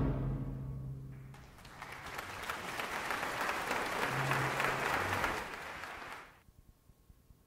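The orchestra's final chord dies away in the hall's reverberation, then the audience breaks into applause about a second and a half in. The applause cuts off suddenly near the end.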